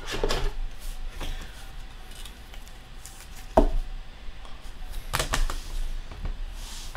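Trading cards and a hard plastic card holder being handled on a table: scattered light clicks and rustles, with one sharper knock about halfway through and a couple more clicks soon after.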